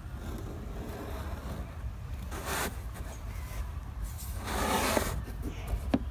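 A pen scratching a line along masking tape stuck to a canoe hull, two short scratchy strokes, the longer one about two-thirds of the way in, then a sharp click near the end. Wind rumbles steadily on the microphone underneath.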